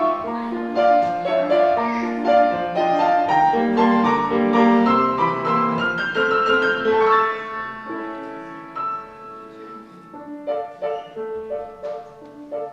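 Piano music playing a melody over chords, growing softer and sparser in the second half.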